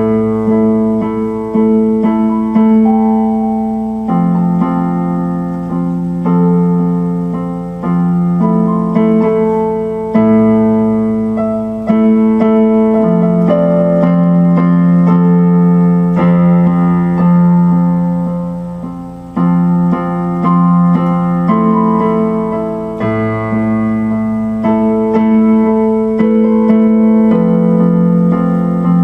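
Digital keyboard with an electric-piano sound playing slow sustained chords. A new chord is struck every second or two and fades before the next.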